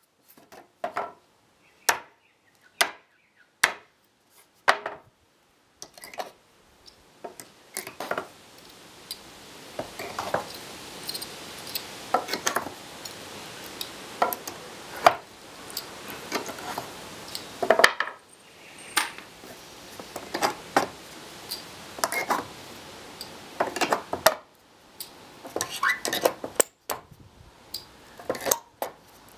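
Claw hammer striking steel nails in pine pallet boards, driving the short nails back out: sharp metallic clinks and taps, irregular, often in quick runs of several blows, over a steady background hiss from about six seconds in.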